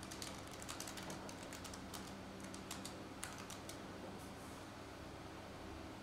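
Typing on a low-profile computer keyboard: a quick run of light key clicks over the first few seconds that thins out to almost none, over a faint steady hum.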